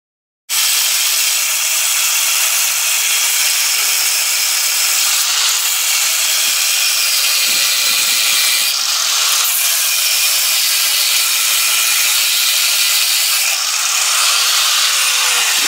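Electric grinder cutting steel under the rear of a Nissan Hardbody pickup by the rear axle, throwing sparks: a steady, loud grinding hiss with a faint motor whine under it, starting about half a second in.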